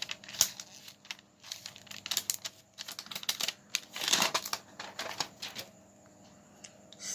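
Plastic packaging crinkling and crackling in quick irregular bursts as a new smartphone is unwrapped and handled, dying down near the end.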